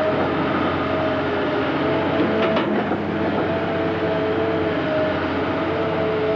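Hydraulic excavator running under load as it works a stump shear: a steady engine drone with a hydraulic whine that shifts a little in pitch, and one brief knock about two and a half seconds in.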